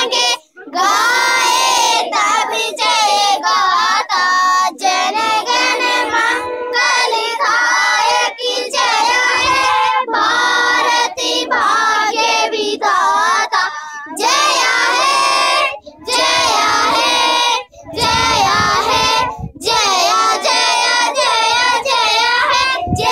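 A group of children singing a song together without instruments, phrase after phrase with short pauses between the lines.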